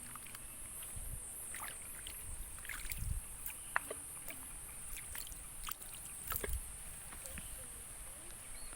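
Water sloshing and splashing with a few dull low thuds and scattered clicks, over a steady high-pitched chorus of insects.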